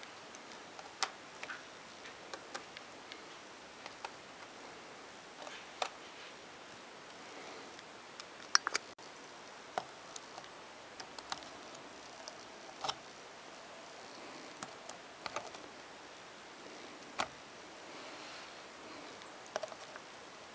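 Irregular sharp plastic clicks, one louder about a third of the way in, as a thin plastic pry tool presses in the retaining clips along the top edge of an Asus X53E laptop keyboard to release it. A steady faint hiss runs between the clicks.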